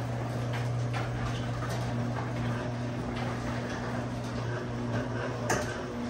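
Electric garage door opener running steadily as the garage door closes, a low motor hum with occasional clicks and rattles from the door.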